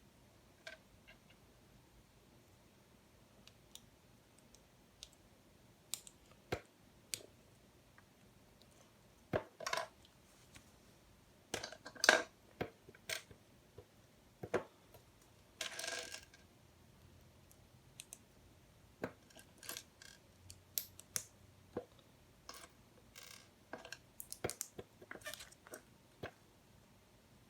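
Plastic LEGO Technic pieces being handled and pressed together: scattered, irregular clicks and taps, with a short rattle about sixteen seconds in.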